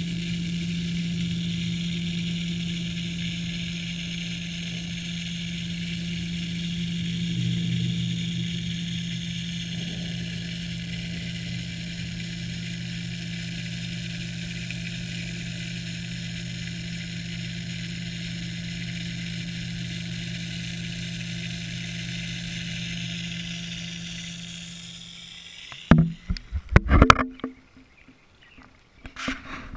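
Steady mechanical hum of a garden pond's pump heard through the water with the camera submerged, with a strong low tone. About 26 seconds in the hum cuts off and gives way to several loud knocks and splashes as the camera breaks the surface.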